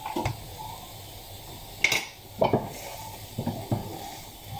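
A cooking utensil knocking and scraping against a wok as the dish is stirred, with a sharp clink about two seconds in.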